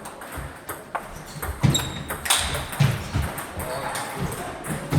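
Table-tennis ball being struck back and forth in a rally: a quick series of sharp taps off the rackets and the table, some with a brief high ping.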